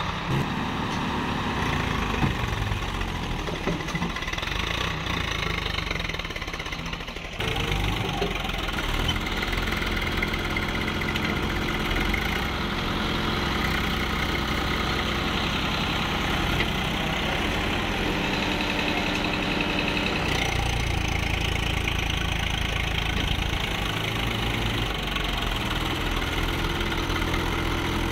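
Mahindra Yuvo 415 DI tractor's diesel engine running steadily, its speed shifting now and then, as the tractor works to pull a loaded trailer stuck in mud.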